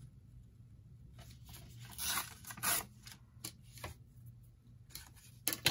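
Paper torn in two short rips along the edge of a ruler to trim a card, about two seconds in, with light paper rustling around them and a sharp tap near the end.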